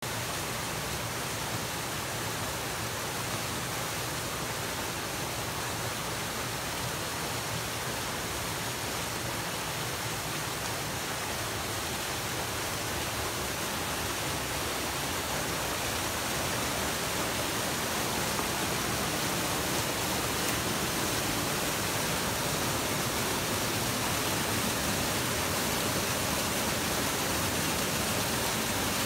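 Twin waterfalls pouring into a plunge pool: a steady rush of falling water that grows a little louder about halfway through.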